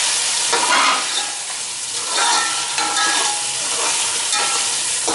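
Mutton and spices sizzling in a metal pot while a metal spoon stirs and scrapes the pot's bottom in strokes about once a second. The yogurt's water has almost cooked off, so the meat is frying in oil.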